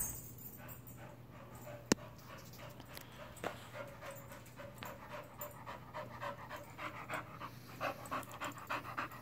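A dog panting in quick rhythmic pulses, getting louder as she comes close near the end, over a low steady hum. A single sharp click sounds about two seconds in.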